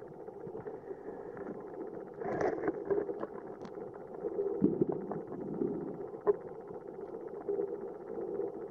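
Underwater ambience picked up by a submerged camera: a steady, muffled rumble with scattered clicks and crackles, and a brief louder rush of noise about two seconds in.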